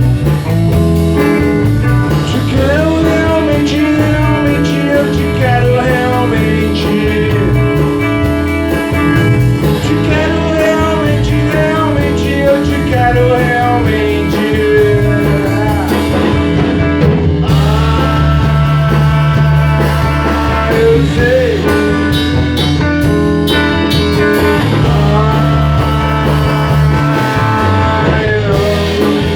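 Rock band playing an instrumental passage: a bending lead guitar line over steady bass notes.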